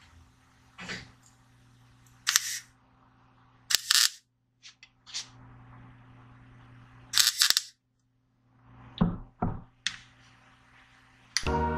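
MIG welder tacking a sheet-steel patch panel: about seven short crackling bursts of arc, each under half a second, spread irregularly with pauses between them. A steady low hum runs underneath, and music comes in just before the end.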